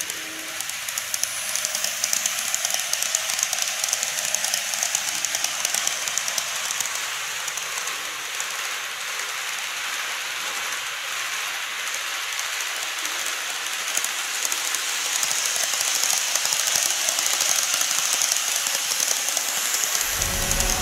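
Model electric trains (JR Kyushu 813 series and 787 series models) running on model track: a steady hiss-like rattle of small motors and wheels with fine rapid clicking, growing louder in the second half as a train passes close.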